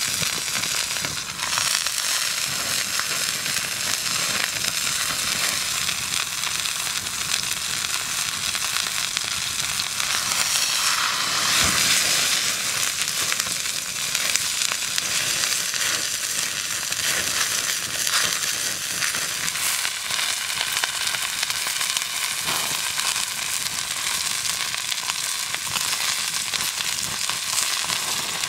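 Beef sizzling as it sears in a hot cast iron skillet over an open wood fire: a steady frying hiss with occasional sharp pops.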